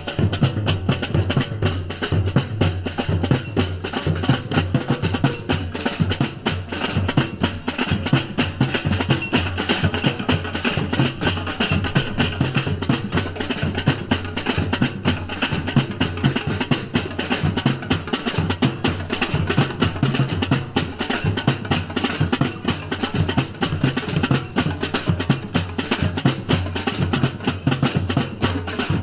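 Batucada samba percussion ensemble playing: a dense, fast stream of drum and hand-percussion strikes over a steady low drum pulse.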